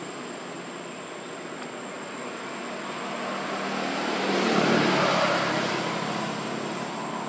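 Motor vehicle noise that swells to a peak a little past halfway and fades again, as of a vehicle passing, over a faint steady high-pitched whine.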